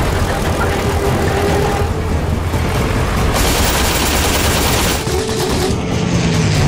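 Propeller fighter plane's engine running, mixed with rapid gunfire, as in an aerial battle. A harsher burst of noise comes from about three and a half to five seconds in.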